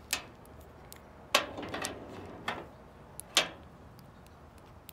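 Light clicks and taps from makeup being handled: a plastic lipstick tube and a powder brush. About five short sharp sounds are spread over a few seconds, the clearest just over a second in and again a little after three seconds.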